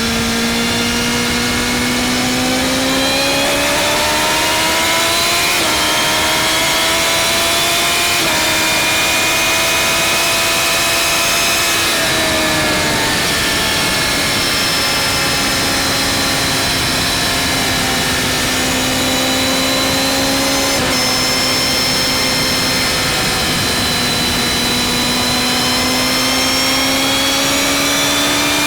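BMW M1000R's inline-four engine running at speed on the motorway. Its note climbs through the first several seconds with two small jumps in pitch, eases off about twelve seconds in, holds steady, then climbs again near the end, under a constant rush of wind noise.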